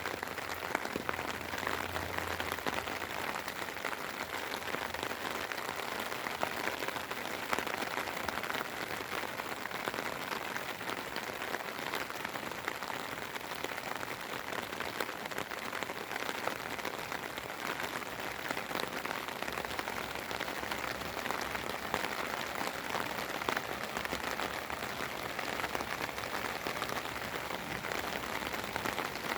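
Steady rain falling, a dense even hiss of many small drops striking surfaces.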